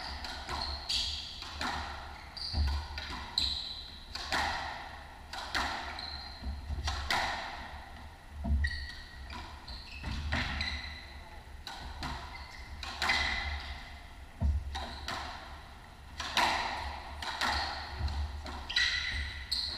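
A squash rally: the ball hitting rackets and court walls in a run of sharp, echoing hits, one to two a second, with shoes squeaking and footfalls thudding on the hardwood floor between shots.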